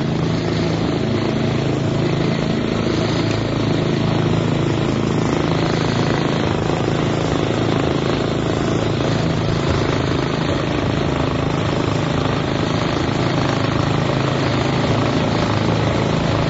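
Small engine of a motorized wheelbarrow running at a steady speed.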